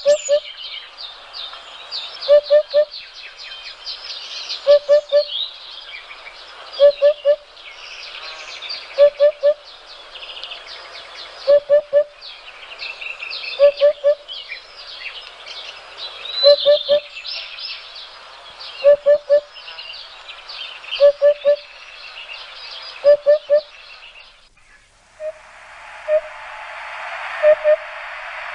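Birdsong: many small birds chirping busily, over a lower call of two or three short notes that repeats about every two seconds. About 25 seconds in, the chirping gives way to a steady hiss while the low call goes on.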